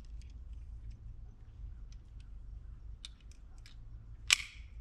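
Faint scattered clicks of a 9mm pistol being handled while a stovepipe jam is cleared, then a single loud, sharp crack about four seconds in, a pistol shot.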